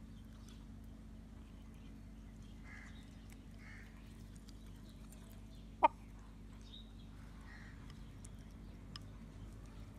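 Rooster pecking rice from a bowl: faint, scattered ticks of the beak, with one short, sharp, much louder sound about six seconds in, over a low steady hum.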